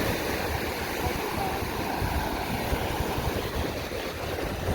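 Ocean surf washing steadily onto the beach, with wind buffeting the microphone in low rumbles.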